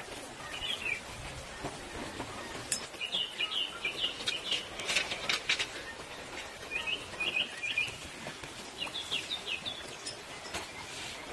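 Small bird chirping in four short runs of quick, high notes, with a few sharp clicks between them.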